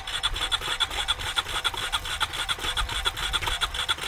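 Honda Rancher ATV's single-cylinder engine being cranked over on the electric starter without catching: a fast, even, rasping chug. The engine is waterlogged from going under in the pond, and the cranking pushes water out through the exhaust.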